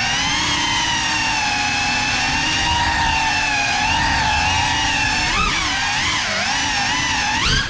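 Motors and ducted propellers of a Cinelog 35 FPV cinewhoop drone whining in flight. The pitch holds steady, dips and swings twice after the middle, and rises again near the end as the throttle changes.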